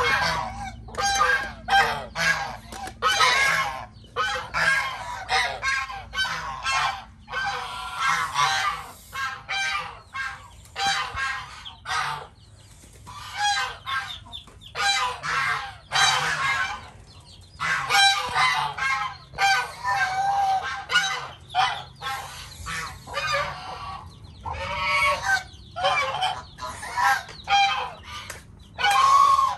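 Geese honking over and over, the calls coming in quick runs with brief pauses between.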